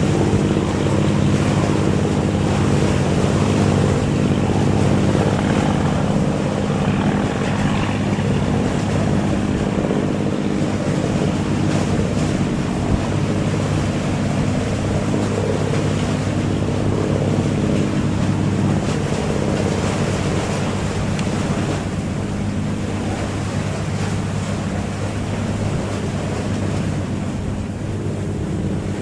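A boat engine running steadily at an even pitch, with the wash of water and wind noise over it.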